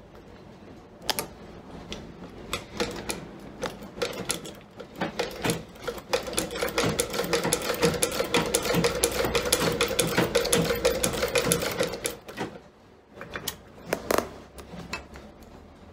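Leather patcher sewing machine stitching through a boot's leather upper and patch. A rapid clatter of the needle comes in short runs at first, then runs continuously with a steady hum, and stops about three-quarters of the way through. A few scattered knocks follow.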